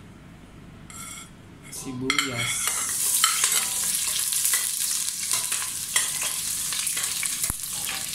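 Sliced onions dropped into hot cooking oil in a stainless steel pot start sizzling about two and a half seconds in, the first stage of sautéing. A metal ladle clicks and scrapes against the pot as the onions are stirred.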